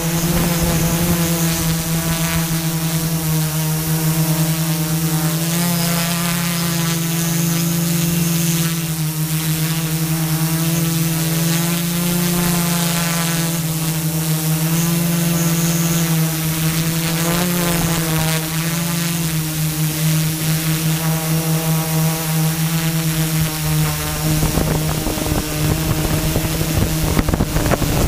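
Motors and propellers of a multirotor camera drone whining steadily, the pitch wavering as the throttle changes. Near the end the whine turns rougher and wind buffets the microphone.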